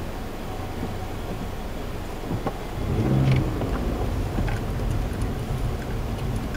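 Car engine running, heard from inside the cabin as a steady low hum, swelling louder about three seconds in as an engine is revved.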